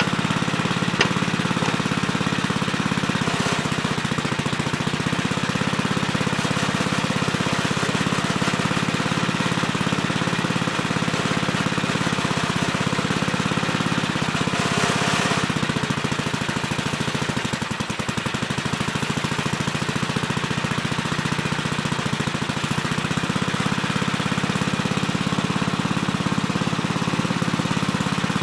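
Gravely Terramite compact backhoe's engine running steadily under work, with a brief rushing noise about halfway through.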